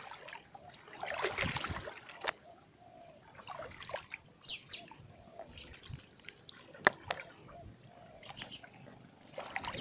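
Water splashing and sloshing as someone wades waist-deep through floodwater, with a few sharp clicks, the loudest about seven seconds in.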